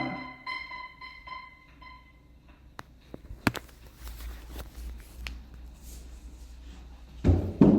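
Fisher-Price toy turntables: a few repeated chiming tones fade out over the first two seconds, followed by a lull with a few sharp clicks and a low rumble. The dense clattering sound comes back loudly near the end.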